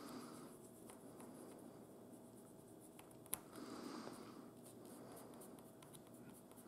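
Faint scratching of a pencil's graphite lead rubbed against the end of a small wooden connecting rod, coating it with graphite as a dry lubricant where it will pivot on the crank. The scratching comes in two spells, with one sharp click a little over three seconds in.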